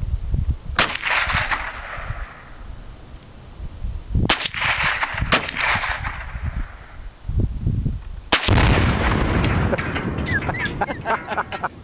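Three rifle shots, each crack ringing off. About eight seconds in, a half-pound Tannerite exploding target packed inside a Power Mac G5 case detonates: a louder blast with a long rumble, then a patter of sharp clicks.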